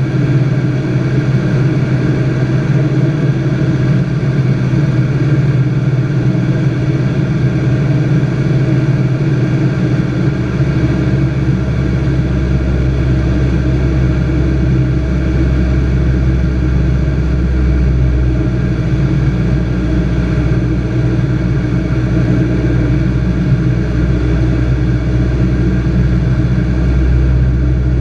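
Robin light aircraft's piston engine and propeller droning steadily and loudly, with a deeper low hum joining about ten seconds in.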